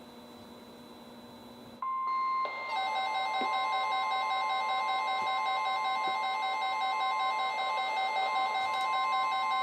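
Weather radio receivers sounding a warning alert. At first there is only a faint hiss. About two seconds in, NOAA Weather Radio's steady warning alarm tone comes on. Half a second later several radios' own alarm beeps join it, some steady and some pulsing, and all sound together, signalling that a warning is being issued.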